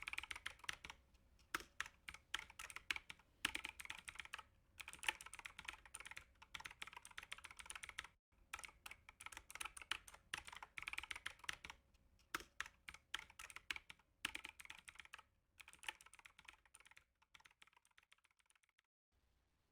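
Faint typing on a computer keyboard: runs of rapid key clicks in bursts with short pauses between them, stopping just before the end.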